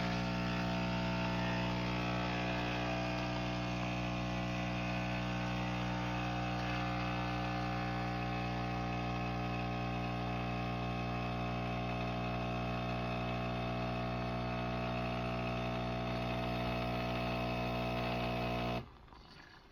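Philips 4300 LatteGo espresso machine running through a cappuccino cycle with a steady, loud mechanical hum, which cuts off suddenly near the end as the drink finishes.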